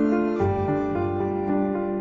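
Background music: a slow keyboard melody with held notes, a new chord coming in about half a second in.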